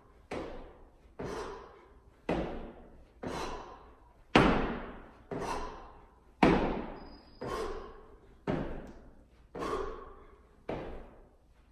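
Feet landing on a gym floor during jumping jacks with dumbbell presses (jack presses), a thud about once a second with a short ringing tail, a couple of them louder than the rest.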